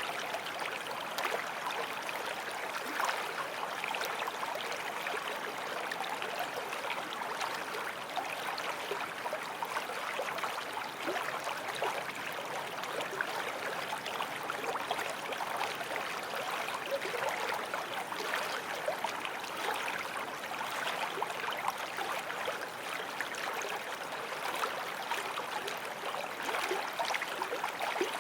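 Forest stream flowing steadily over stones, a continuous burble of running water with small splashes and trickles.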